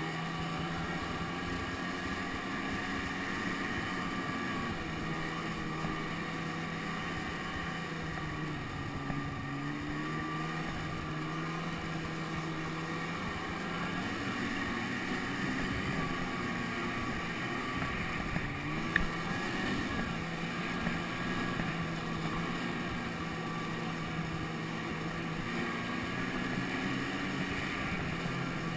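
Snowmobile engine running under way, heard from on board the sled, its pitch rising and falling gently with the throttle. There is a single sharp tick about two-thirds of the way through.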